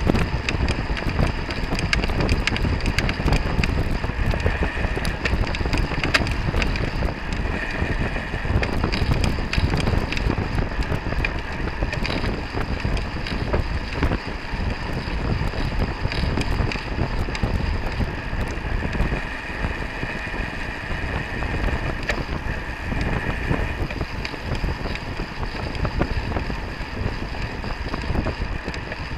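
Wind rushing over the microphone of a camera mounted on a racing bicycle at riding speed, mixed with the tyre and road noise of a pack of road bikes. A steady rumble with scattered crackles of wind buffeting.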